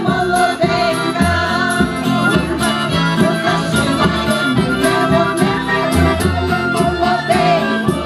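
Ukrainian folk song sung by a women's vocal group over a recorded backing track with a steady beat and bass line.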